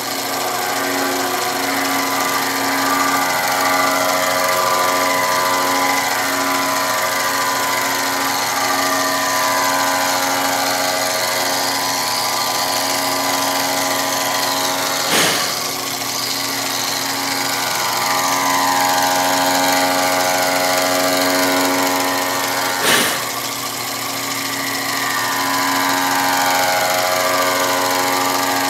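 Sherline benchtop milling machine running steadily, its motor and spindle whining as a small end mill cuts into a brass bearing box, with some tones slowly shifting in pitch. Two sharp clicks stand out, about halfway through and again near the end.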